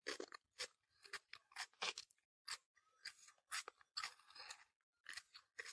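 Faint close-up chewing of fried tofu in chilli sauce: a string of short, irregular mouth clicks and smacks, a few a second.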